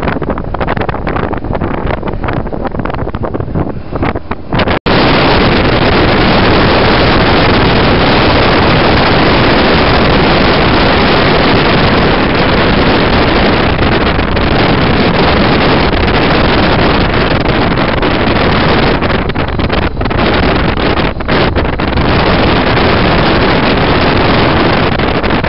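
Wind rushing over the microphone, mixed with engine and road noise from a motorcycle riding at speed. The sound cuts out for an instant about five seconds in, then comes back louder and steadier.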